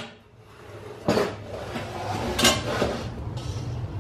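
Metal curtain track knocking and clinking as it is handled against the wall and ceiling, with two sharper knocks about a second and two and a half seconds in.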